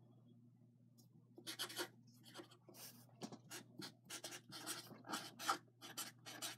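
Handwriting on paper: a run of short, irregular scratchy strokes starting about a second and a half in, over a steady low hum.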